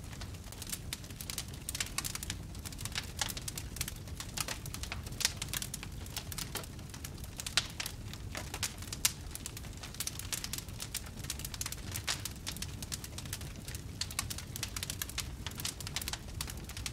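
Wood fire crackling steadily over a low rumble, with dense irregular small crackles and a few louder pops about five, seven and a half, and nine seconds in.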